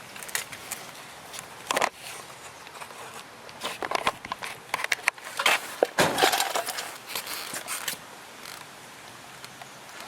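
Camera handling noise while it is set on a tripod: irregular knocks, clicks and rustling, busiest and loudest in the middle of the stretch.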